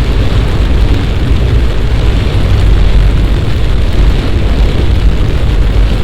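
Heavy summer downpour: a loud, steady rush of rain with a deep rumble.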